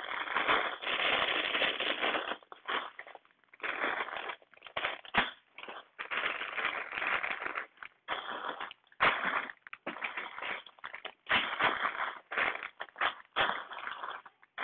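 Clear plastic bags of Lego pieces crinkling and rustling as they are handled and shuffled about, in irregular bursts with short pauses between them.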